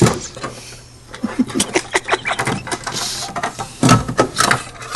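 Cockatoo chewing and cracking plastic with its beak while building a nest: a run of irregular clicks and crunches, louder about four seconds in.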